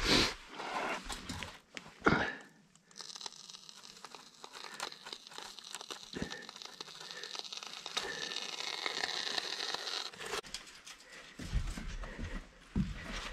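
Polyurethane spray foam hissing and crackling steadily out of a foam gun for about seven seconds, with knocks from handling the gun before and after.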